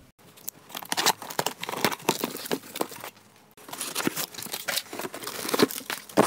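Cardboard box flaps and plastic wrapping rustling and crinkling as an item is unpacked, with many small crackles and clicks. There is a short lull about three seconds in, then denser crinkling.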